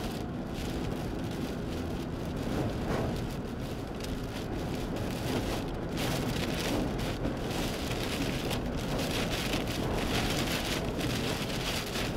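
Heavy, wind-driven rain pelting a moving vehicle in the wind of a tornado's circulation, a dense steady rush with many irregular sharp hits and gusting swells.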